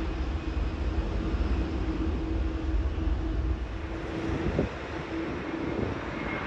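Jet airliner engines running at a steady pitch, a constant hum with one held tone. A low rumble underneath eases after about three and a half seconds.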